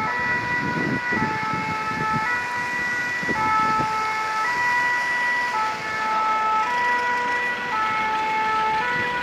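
Fire engine's two-tone siren, alternating between a higher and a lower pitch about once a second.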